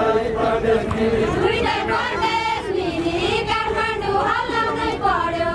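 Several men's voices singing a deuda song together, unaccompanied, in long held, wavering notes, with crowd chatter behind.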